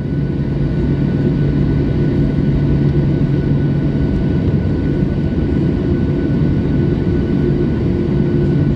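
Jet airliner's engines heard from inside the cabin while taxiing: a steady rumble with a low hum and a faint high whine.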